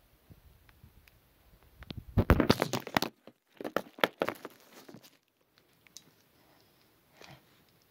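Plastic packaging crinkling and rustling close to the microphone, in two dense crackling bursts about two and four seconds in.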